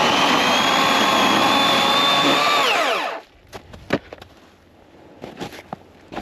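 Master Force 80-volt cordless electric chainsaw running at full speed with a steady high whine, then winding down and stopping about three seconds in once the trigger is released. A few sharp clicks and knocks follow.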